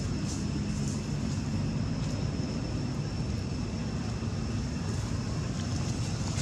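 Steady low background rumble with a faint, thin, high steady whine above it. Nothing starts or stops.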